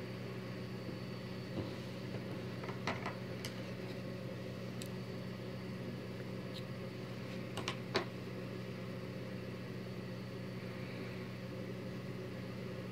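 Steady low electrical hum, with a few light clicks from handling the yarn and hook. About eight seconds in, two sharper snips as scissors cut the yarn.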